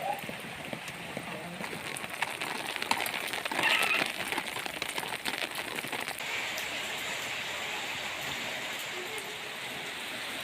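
Rain falling steadily, with many individual drops landing as short sharp hits, and a brief louder surge about four seconds in.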